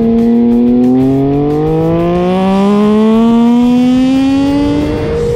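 Triumph 765 three-cylinder racing engine, with a full Arrow race exhaust, pulling hard under acceleration: the revs climb steadily for about five seconds, then drop sharply near the end at an upshift.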